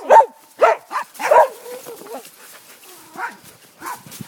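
Dogs barking during rough play: several loud, short barks in the first second and a half, one of them drawn out and falling in pitch, then two fainter barks near the end.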